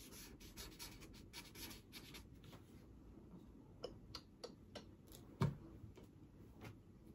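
A pen scratching out a signature: quick scratchy strokes for about three seconds, then a few light clicks and a single sharp thump about five seconds in.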